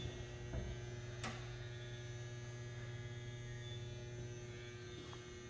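Steady low electrical mains hum, with two faint clicks in the first second and a half.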